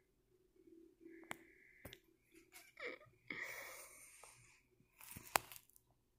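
Faint handling noise from a phone being carried and panned around a small room: scattered clicks and a breathy rustle for about a second midway. A sharp click about five seconds in is the loudest sound.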